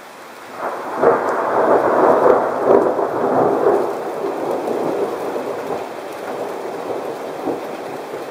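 A peal of thunder over steady heavy rain. It breaks in a little under a second in, crackles and rumbles loudest for about three seconds, then slowly rolls away.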